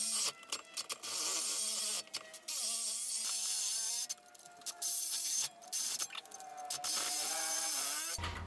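Reciprocating saw (Sawzall) cutting through the turbo support bracket in short stop-start runs of about a second each, its motor whine rising and falling in pitch.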